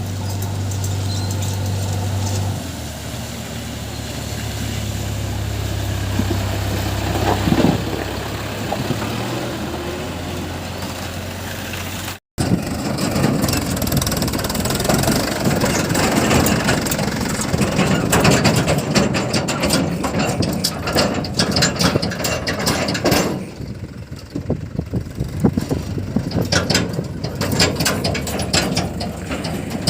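Diesel engines of a JCB 3DX backhoe loader and a tractor running steadily. After an abrupt cut about twelve seconds in, the engine sound turns louder and rougher, with many sharp clicks and knocks.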